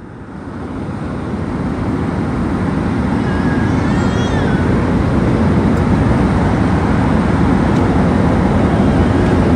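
Steady roar of an airliner's cabin noise, growing louder over the first few seconds and then holding steady, with a faint wavering tone about three to four seconds in.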